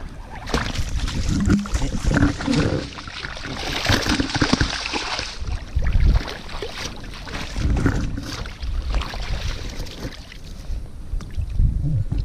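Shallow river water splashing and sloshing at the bank as a landed coho salmon is handled in the shallows, with irregular knocks and rustles of handling close by.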